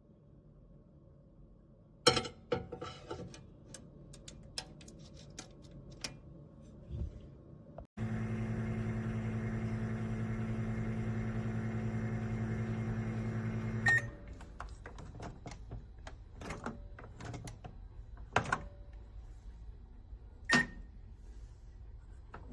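Several clicks and knocks, then a Black+Decker EM720CB7 700-watt compact microwave oven running with a steady hum for about six seconds. It stops suddenly with a short beep, followed by a few more clicks and another short beep.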